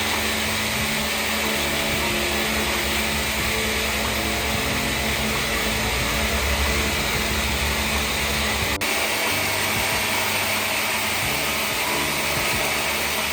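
A machine running steadily with a dense, even whirring noise and a low hum underneath. There is a brief break about nine seconds in.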